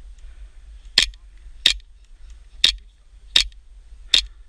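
Airsoft gun firing five sharp single shots, spaced roughly three-quarters of a second to a second apart.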